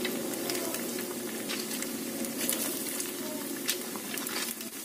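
Oil sizzling and crackling steadily as pieces of boiled pempek dough deep-fry in a pan, with scattered sharp pops.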